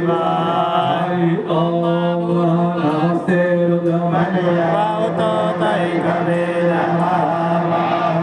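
Vedic Sanskrit mantras chanted by voice on a nearly steady pitch, with short breaths about a second and a half and three seconds in.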